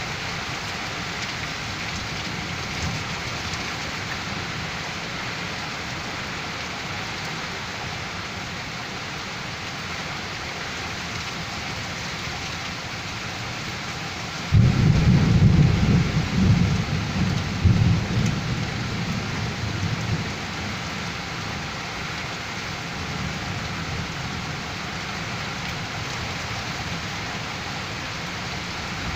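Heavy rain falling steadily during a severe thunderstorm. About halfway through, a sudden loud clap of thunder rumbles for about five seconds and dies away.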